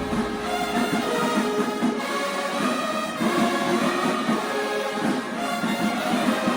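High school band playing, with brass carrying the melody and little bass underneath.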